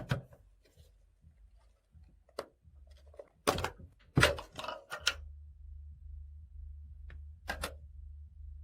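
Knocks and clatters of small plastic slime-kit pieces being handled on a tabletop, loudest around three and a half to four and a half seconds in. A steady low hum starts about halfway through.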